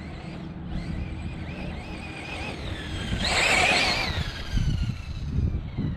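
Losi 8ight-E electric buggy's brushless motor and drivetrain whining, the pitch rising and falling with the throttle. About three seconds in it gets loudest, with a rush of tyre and dirt noise, and the whine then drops in pitch as it slows or moves away. Low wind rumble on the microphone runs underneath.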